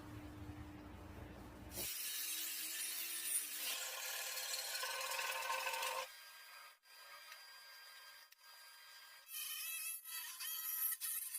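Power tools working meranti wood, heard in several short clips that change abruptly: a loud hissing cut with a motor whine for about four seconds, then quieter running, and a louder burst near the end.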